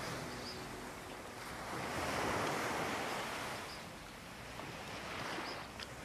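Ocean waves washing ashore: a swell rises to its loudest about two seconds in, ebbs, and a smaller one comes near the end.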